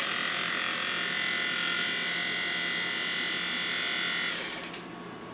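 Deer feeder spinner motor, a small battery-powered DC motor, switching on with a click and running with a steady high whine for about four seconds before winding down. It is running unmounted on a bench test and works.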